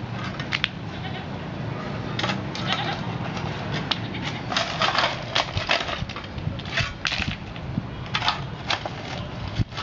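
Broken concrete rubble and gravel scraped and scooped up by hand tools, a series of short, irregular gritty scrapes and crunches.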